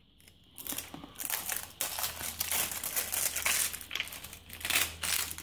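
Clear plastic cellophane wrapping crinkling as it is torn and peeled off a small box by hand, in irregular bursts that start about half a second in.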